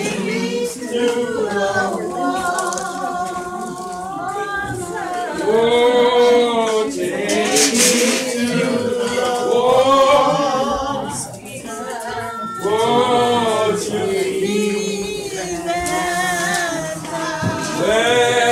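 A church congregation singing a hymn together, men's and women's voices on long held, wavering notes.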